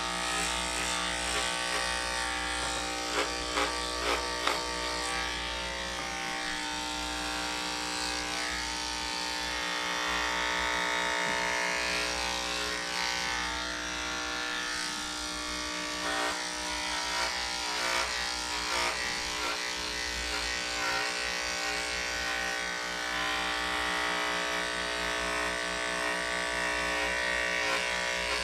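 Wahl cordless dog clipper running steadily with an even electric hum as it clips a Standard Schnauzer's coat, with a few sharp clicks a few seconds in and again just past the middle.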